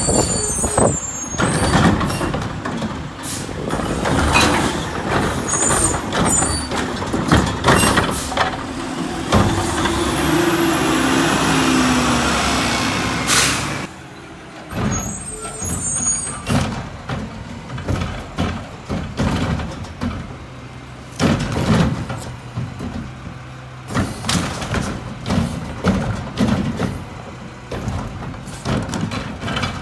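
Mack LR garbage truck with a McNeilus Curotto Can front loader working the curb: diesel engine running, air brakes hissing as it stops, and the Curotto Can's automated arm clanking and whining as it grabs and tips a cart.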